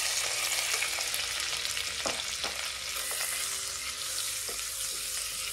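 Pineapple chunks sizzling as they fry in hot ghee, stirred with a silicone spatula; a steady sizzle with a few light knocks of the spatula against the pan.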